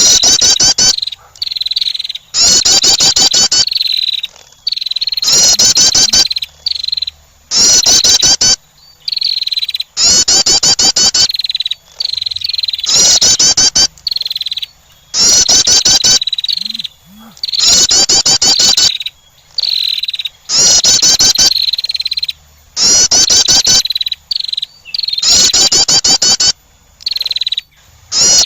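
Female wren's call, the kind used to lure wrens. It comes as a series of fast, high-pitched trilled phrases, each about a second long, repeating every two to three seconds.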